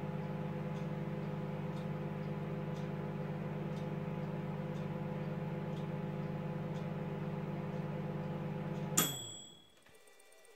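Steady electric hum of a kitchen appliance's motor, with faint ticks about once a second. About nine seconds in it cuts off with a sharp click and the hum winds down in under a second.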